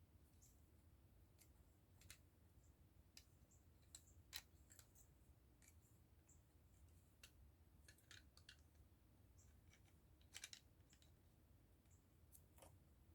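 Faint, scattered clicks and taps of small plastic model-kit parts being handled and pressed together, the loudest about four and ten seconds in.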